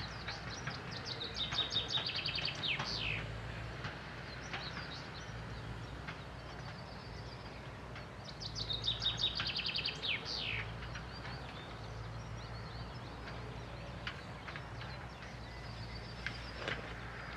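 A songbird sings two short phrases, each a rapid run of high notes ending in quick falling notes, about seven seconds apart. A low, steady engine hum runs underneath.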